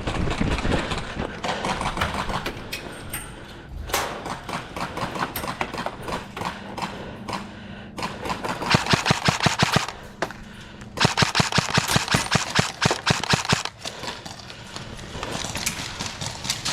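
Airsoft guns firing in rapid bursts, with scattered single shots and two long strings of rapid shots about eight and eleven seconds in.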